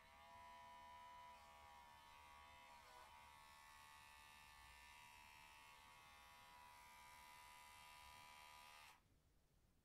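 Electric pet hair clipper running with a steady buzz, its pitch sagging briefly about three seconds in, then switched off about nine seconds in.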